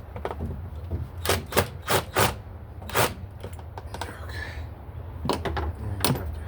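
Sharp clicks and knocks from hand work in an engine bay during a throttle body install: a quick cluster of about five strikes a little over a second in, another around three seconds, and a few lighter ones near the end, over a steady low hum.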